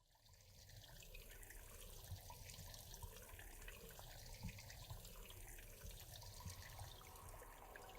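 Faint running, splashing water with scattered small clicks and a low rumble, fading in at the start.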